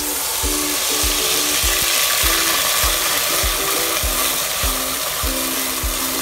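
Loud, steady sizzling as a cold milk-and-semolina mixture hits hot melted caramelized sugar in a pan and is stirred fast with a silicone spatula. Background music with a steady beat plays underneath.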